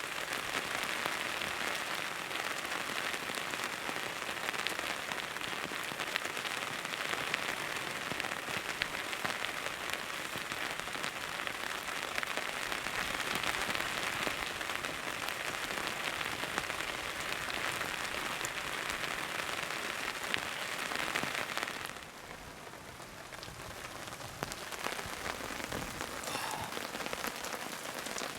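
Steady heavy rain falling, a dense hiss of many fine drop impacts. It turns noticeably quieter about three-quarters of the way through, then picks up again near the end.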